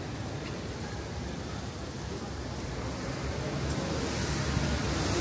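Rainy city street ambience: a steady wash of noise that grows louder over the last two seconds.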